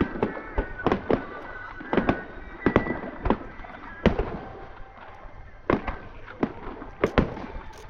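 Fireworks going off: a quick, irregular string of sharp bangs, sometimes two close together, with a short lull a little past the middle.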